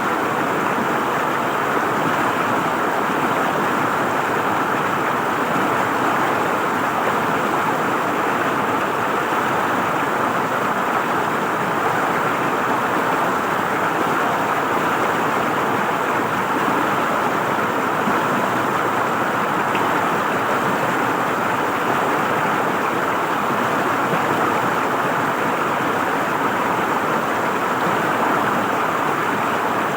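River water flowing and gurgling over rocks, a steady rush that stays even throughout.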